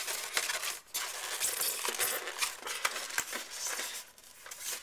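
A plastic model railway coach handled in its polystyrene packaging tray: scratchy rubbing and frequent light clicks as the coach is worked loose and lifted out of its fitted slot.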